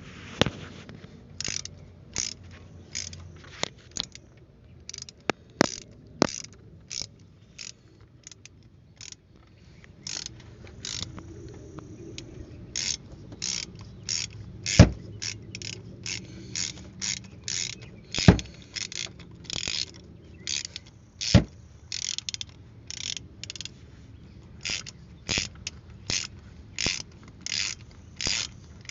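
Ratchet wrench clicking in many short runs, about one every half second, as it unscrews a spark plug, with three louder sharp knocks in the middle.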